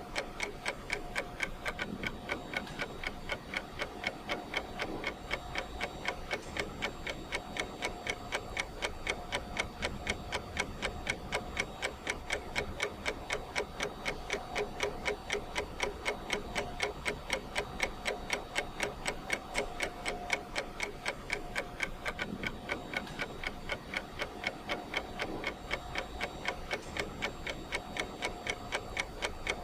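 Clock ticking at a fast, even rate, used as a countdown timer's ticking sound.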